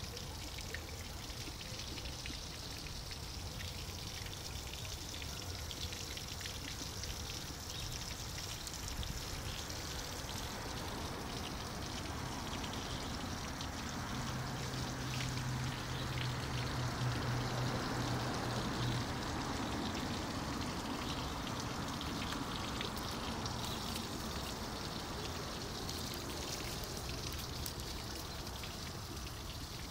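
Fountain water pouring and trickling steadily from a water-table fountain. A low steady hum joins in for a few seconds past the middle.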